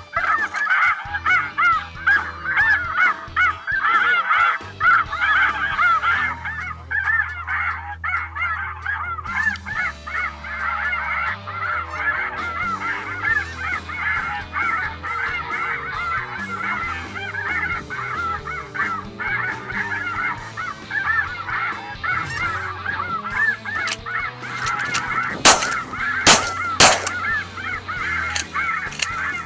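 A large flock of light geese calling constantly, a dense overlapping din of honks. Near the end, three sharp bangs about two-thirds of a second apart: shotgun shots fired at the flock.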